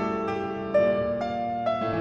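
Background piano music: slow, gentle notes struck one after another, with a new note about every half second.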